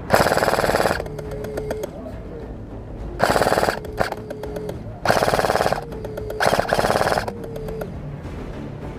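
Airsoft gun firing four short full-auto bursts of rapid clicking shots, each lasting under a second. The first burst comes at the start and the last ends about two-thirds of the way in.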